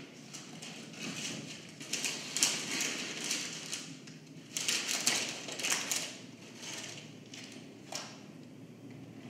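Sheets of paper rustling and crackling in a string of irregular bursts as loose papers are handled and gathered up from the floor, with a single click near the end.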